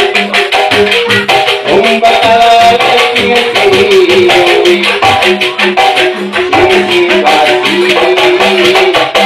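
Live amplified Sundanese music led by angklung, bamboo rattles shaken rapidly so each melody note rings as a trembling held tone, over a steady low beat.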